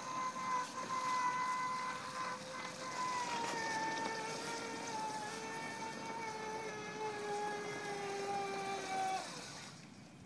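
Electric drive motor of a motorised beach wagon running with a steady whine that sinks slowly in pitch as it slows, then stops about nine seconds in.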